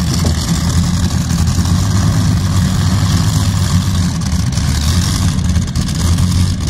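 Twin Rolls-Royce Griffon 58 V12 aero engines of a pulling tractor running steadily at idle, a low even drone with no revving.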